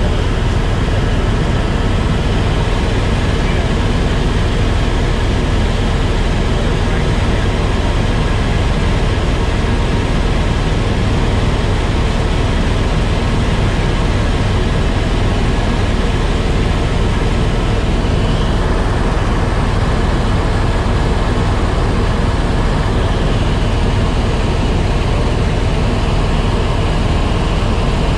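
Helicopter in flight heard from inside the cabin: loud, steady rotor and engine noise with a heavy low drone that never lets up.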